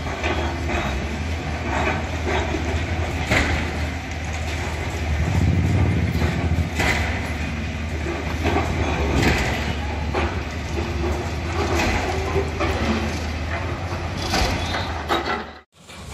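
Diesel engines of tracked demolition excavators running steadily, with repeated knocks and clatter of concrete rubble being broken and falling. The sound drops out briefly near the end.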